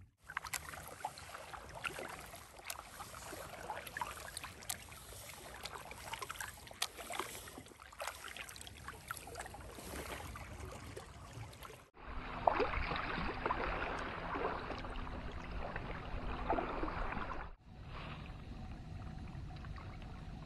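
Kayak paddle strokes through calm lake water: the blade dipping and pulling, with drips and small splashes falling from it. The sound breaks off briefly twice.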